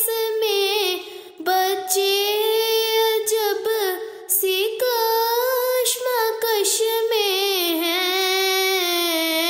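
A solo female voice singing an Urdu nazm in long held notes with vibrato. There are short breaths about a second and four seconds in, and the melody sinks lower near the end.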